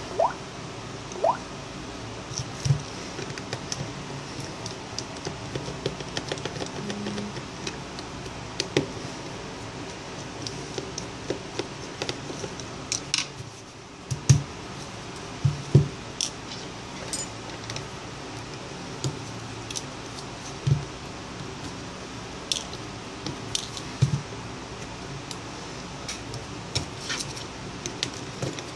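Scattered clicks and light knocks of hands handling a Samsung Galaxy Note N7000 smartphone: tapping the touchscreen, then unclipping its plastic back cover, over a steady faint hum.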